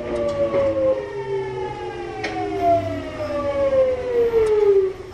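Hitachi GTO-VVVF inverter of a Kintetsu 1021 series electric train whining in several tones that fall steadily in pitch as the train brakes for a station stop. The whine cuts off suddenly near the end as the electric brake releases.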